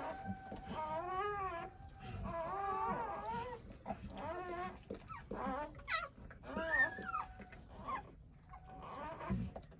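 Doberman whimpering during whelping: a run of short, high whining cries that bend up and down in pitch, about a dozen of them, easing off near the end.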